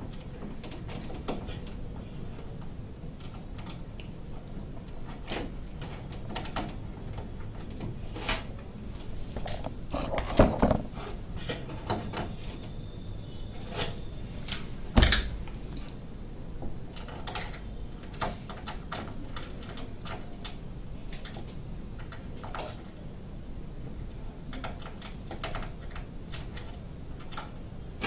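Scattered small clicks, taps and knocks of hands handling parts and cables inside an open desktop PC case while fitting an M.2 NVMe SSD, with one sharper knock about halfway through.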